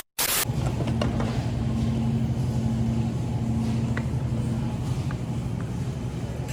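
Steady low hum of a running vehicle, with a faint tone above it that comes and goes. A brief burst of hiss sits at the very start.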